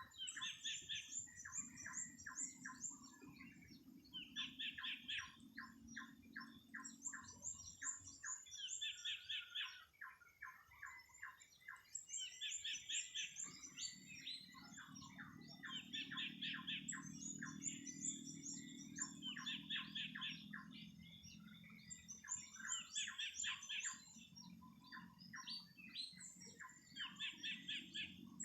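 Songbirds chirping in quick trills of short notes, phrases repeating every second or two at two different pitches, over a faint low hum.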